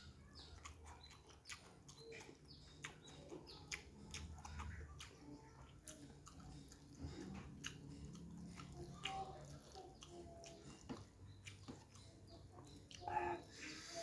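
Close-up chewing of soft noodles and rice, with many small wet mouth clicks and smacks. A brief louder pitched sound comes near the end.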